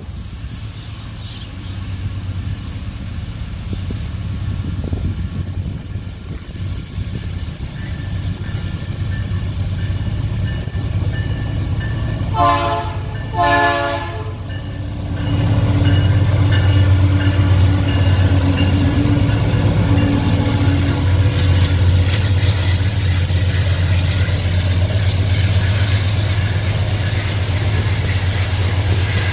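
Diesel locomotive of a Vale iron-ore train approaching, its rumble growing. It sounds two short horn blasts about halfway through. The loud, steady rumble of the locomotive and its loaded ore wagons rolling past follows.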